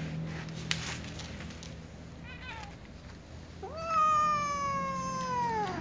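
Domestic cat meowing: a short call about two seconds in, then one long drawn-out meow lasting about two seconds that rises at its onset and slowly falls in pitch.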